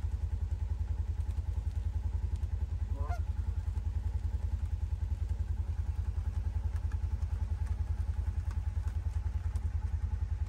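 A Canada goose honks once, about three seconds in, over a loud, low rumble that pulses evenly several times a second.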